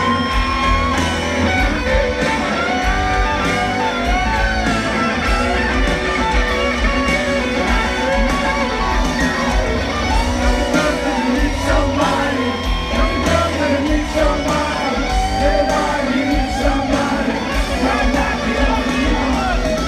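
Live rock band heard from the crowd in an arena: a lead electric guitar plays bending, wavering notes over bass and drums, with the muddy, echoing sound of a phone recording.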